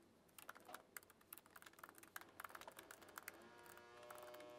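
Faint typing on a laptop keyboard, quick irregular keystrokes. A faint steady hum of several tones comes in a little over three seconds in.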